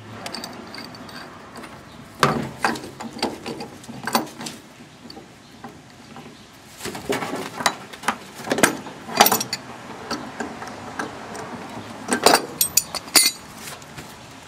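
Hand tools and metal parts clicking and knocking as a cast aluminum part is worked off a hot water heater. The sound comes as irregular sharp metal clicks and clanks in several short clusters.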